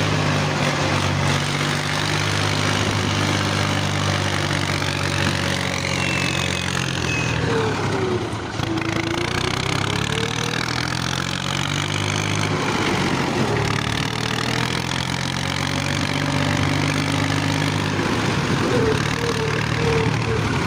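Massey Ferguson tractor's diesel engine running steadily, with a brief dip and recovery in its note about eight seconds in.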